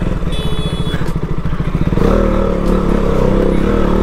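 Motorcycle engine running on the move, a rapid steady pulsing at first, then louder with a clearer engine note from about halfway through as the bike picks up.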